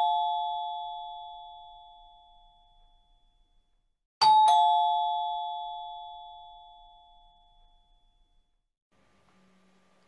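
A two-note ding-dong chime, high note then a lower one, is already fading at the start and sounds again about four seconds in, each time dying away over two to three seconds.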